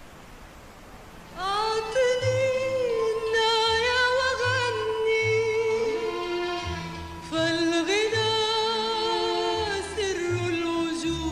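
A faint steady hiss, then about a second and a half in a woman's singing voice enters, holding long wavering notes over a low bass accompaniment.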